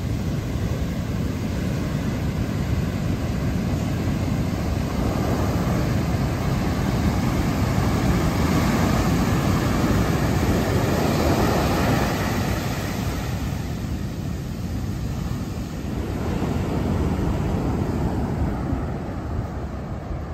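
Heavy surf from a large ocean swell breaking over rocks and washing up the beach: a continuous low rush of noise that surges louder in the middle and again towards the end.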